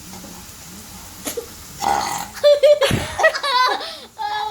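A person lets out a long, loud belch that starts about two seconds in and lasts about two seconds.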